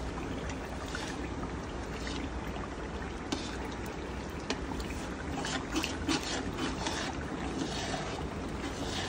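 A spoon stirring thick, oily chili sauce in a metal wok, the sauce sloshing, with sharp clicks now and then as the spoon knocks the pan. The sloshing gets busier from about five and a half to seven seconds in, over a steady low rumble.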